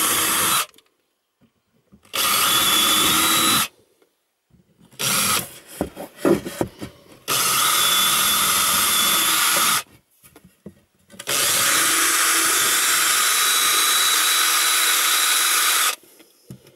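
Cordless drill with a small bit boring pilot holes through a wooden batten, starting and stopping several times: four runs of steady motor whine, the longest near the end. Irregular knocks and handling clatter come between the runs around the middle.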